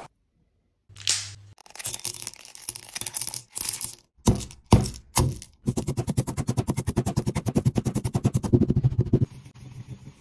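Stone pestle crushing mint Mentos candies in a stone mortar: a loud crack, uneven crunching and a few hard strikes as the candies break, then fast, even grinding strokes as they are worked into powder, turning quieter near the end.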